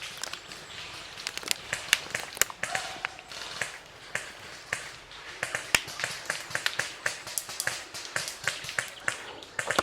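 Airsoft guns firing in irregular sharp snaps, several a second.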